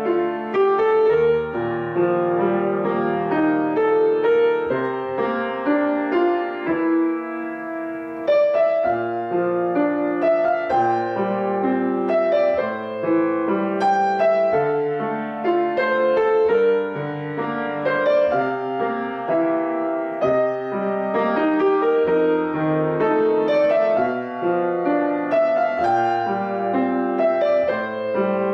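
Grand piano played solo: a flowing new-age piece with notes sounding one after another without a break.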